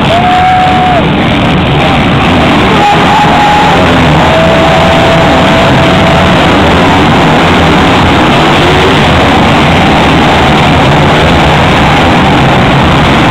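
A pack of motocross bikes racing past at full throttle after the start: a dense, unbroken engine noise loud enough to overload the recording, with a few single engine notes held for a second or two in the first six seconds.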